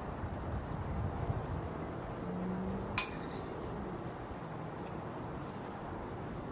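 Outdoor background of low wind rumble and hiss with faint, short high-pitched chirps every second or two, and a single sharp metallic clink about three seconds in.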